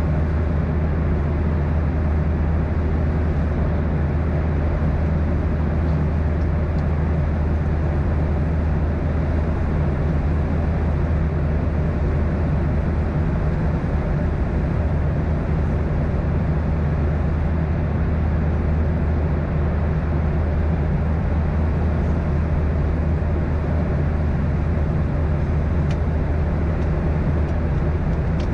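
Steady cabin noise of a Boeing 737-800 in cruise, from its CFM56-7B turbofans and the airflow over the fuselage, heard from a window seat by the wing. A constant deep hum sits under an even rushing, with no change in pitch or level.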